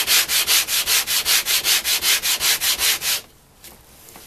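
A Japanese water stone rubbed briskly back and forth on coarse wet-or-dry sandpaper to flatten it: a fast, even gritty scraping, about four strokes a second, that stops abruptly about three seconds in.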